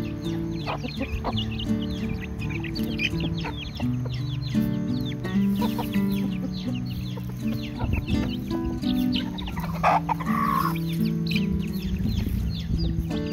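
A flock of chickens clucking and calling over background music with held low notes. One louder, longer call stands out about ten seconds in.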